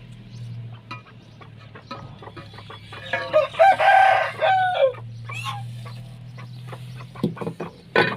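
A rooster crows once, a long call about three seconds in, amid scattered short hen clucks, over a low steady hum.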